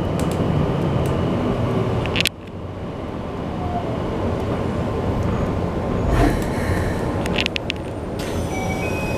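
Onboard running noise of a Keikyu New 1000 series electric train: a steady rumble of wheels on rail, with the level dropping suddenly a little over two seconds in. Near the end, short stepped tones from the Toshiba IGBT-VVVF inverter come in as the train nears the station.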